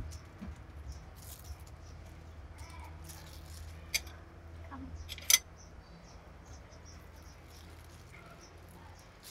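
Plastic wrap rustling and crinkling as it is handled around food, with a sharp click about four seconds in and a louder one just over a second later.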